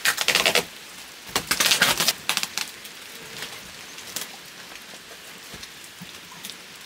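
Plastic wrapping sheet crinkling and rustling loudly in two bursts over the first few seconds as it is pulled off the packaging, then a steady light patter of rain with small scattered taps.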